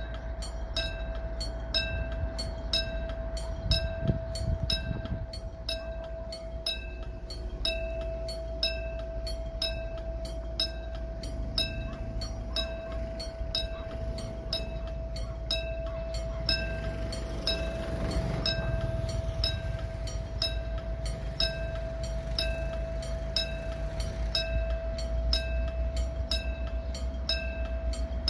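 Railway level crossing warning bell ringing evenly, a bit more than twice a second, with a steady tone beneath it, over the low rumble of a diesel locomotive pulling away in the distance.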